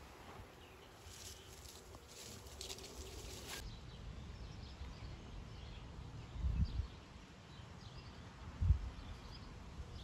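Faint outdoor ambience with a few faint bird chirps and two brief low rumbles in the second half.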